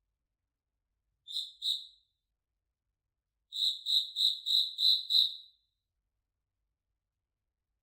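Cricket chirping: two short high chirps, then after a pause a run of six chirps at about three a second, with dead silence between the groups.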